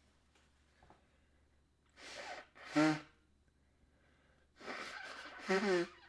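A person sneezing twice, each sneeze a short, loud voiced burst that follows an audible gasping intake of breath.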